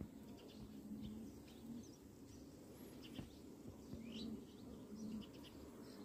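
Faint hum of honey bees crowding an open hive frame, coming and going, with small birds chirping now and then.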